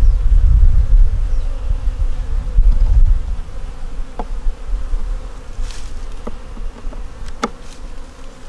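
Honey bees buzzing around an open hive, with a low rumble during the first few seconds and a few light clicks in the second half.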